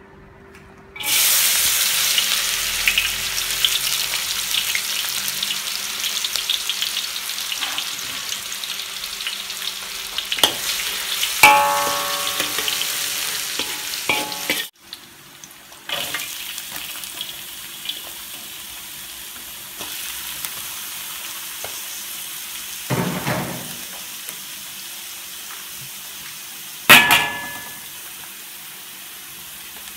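Chopped ingredients hit hot oil in a metal wok and start sizzling loudly about a second in. The sizzle slowly settles to a steadier frying hiss while a metal spatula stirs. The spatula clangs against the wok a few times, with a brief ringing.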